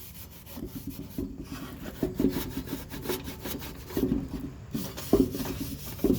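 Irregular rubbing and scraping on an old Westinghouse street light fixture as it is handled and cleaned, with a few light knocks.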